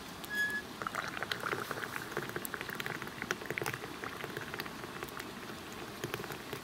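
Liquid boiling in a cooking pot: a dense, uneven bubbling and popping. A short high peep sounds just after the start.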